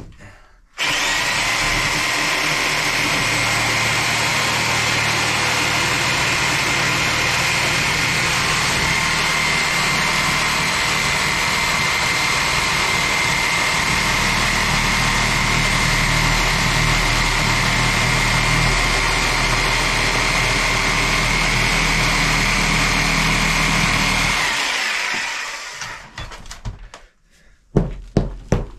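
Reciprocating saw running steadily with a held whine, cutting through the rotten particleboard floor decking along the wall, then winding down. Near the end, a quick run of sharp hammer knocks begins.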